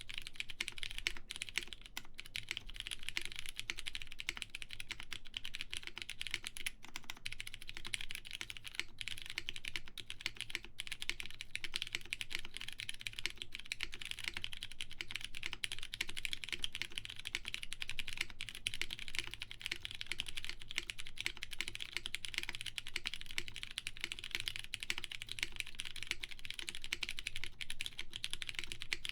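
Continuous fast typing on a plateless mechanical keyboard with lubed Cherry MX Brown tactile switches and GMK keycaps: a dense, steady stream of key strokes.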